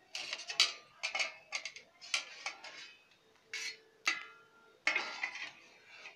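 Stainless steel plate lid on a pan of boiling soup, clinking and rattling in irregular bursts, then lifted off the pan with a louder clatter near the end.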